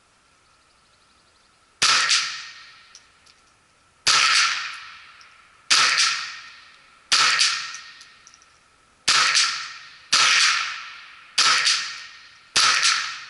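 Ruger 10/22 .22 rimfire semi-automatic rifle fired eight times in slow, deliberate succession, roughly one to two seconds apart. Each sharp crack rings out and echoes away over about a second.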